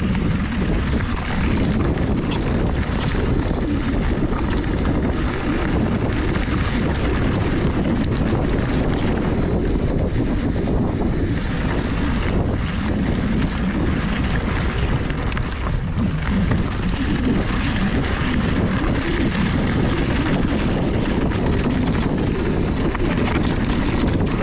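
Mountain bike riding fast down a dry dirt and gravel trail, with wind buffeting the microphone: a steady low rumble of wind and tyres on dirt, with occasional small rattles and stone hits.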